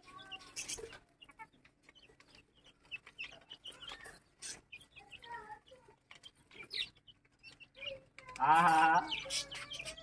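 Chickens clucking, with scattered faint calls, and one louder drawn-out bird call about eight and a half seconds in.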